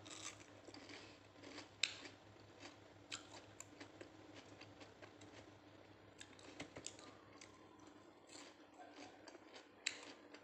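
Crunchy chewing of breaded fried chicken nuggets: an irregular string of short, crisp crackles and clicks, the sharpest about two seconds in and again near the end.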